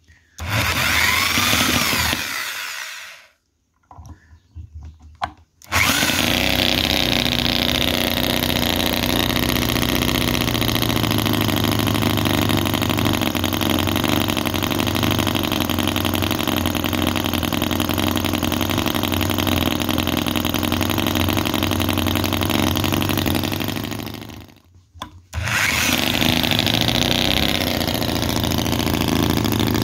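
Microcosm R28 model 45-degree V-twin petrol engine (4.3 cc) being spun by an electric drill starter, with a couple of short tries before it catches about six seconds in. It then runs steadily at high speed. Near the end it cuts out for about a second, then is spun up again and runs on.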